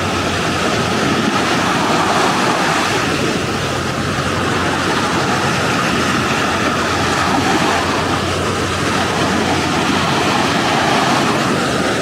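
Surf breaking and washing up a sandy beach: a steady rushing that swells and eases every few seconds.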